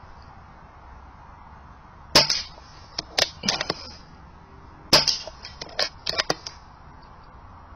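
A run of more than a dozen sharp clicks and knocks at irregular intervals, the loudest about two seconds in and again about five seconds in.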